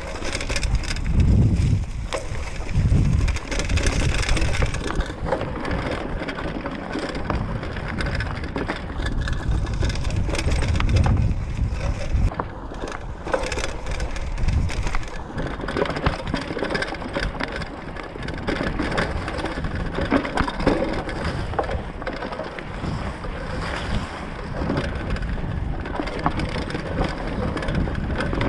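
Mountain bike tyres rolling and crunching over dry leaves and dirt on a forest single-track, with a steady run of small crackles. Wind rumbles on the camera microphone now and then, loudest about a second in and again around ten seconds in.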